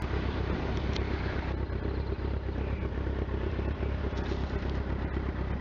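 Steady low engine and road rumble of a motor vehicle travelling at speed, with a hiss of wind over it.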